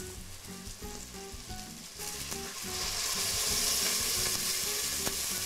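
Spring onion and boletus mushrooms sizzling in olive oil in a stainless steel pot. About two seconds in, water is poured in and a much louder hiss sets in, swelling for a second or two and then holding: the base of a mushroom broth being deglazed.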